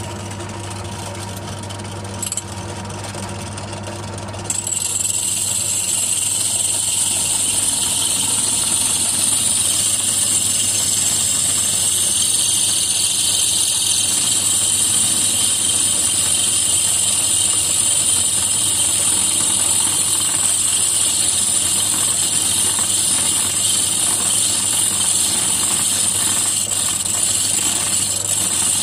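Drill press running with a steady hum. About four and a half seconds in, its hollow core bit bites into the glass bottle and a loud, high, steady grinding hiss starts, the bit widening a hole through the glass.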